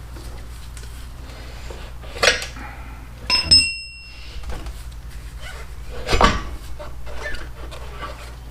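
Metal tools and parts clanking during motorcycle front-wheel removal: three sharp knocks, the second ringing on briefly like struck steel, over a steady low hum.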